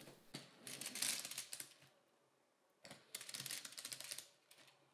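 LEGO Technic 42110 Land Rover Defender chassis pushed along in high fourth gear: the plastic drivetrain gears and the model's piston engine clatter in fast clicks, in two pushes of about a second and a half each. The engine is struggling and its speed fluctuates under the drivetrain's resistance, but the gears do not crack.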